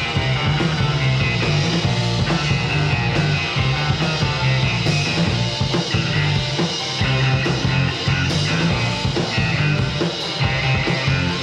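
Indie rock band playing live with no vocals: two electric guitars, electric bass and drum kit in an instrumental passage.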